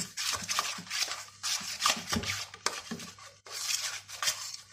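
A spoon stirring and scraping flour dough around a stainless steel bowl, in repeated strokes about three a second, as water is worked into the dough.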